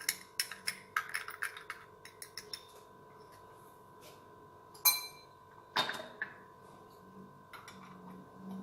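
A spoon clinking against a glass while stirring yeast with sugar and warm water, quick light taps for the first couple of seconds. Then a sharp ringing clink about five seconds in and a duller knock a second later.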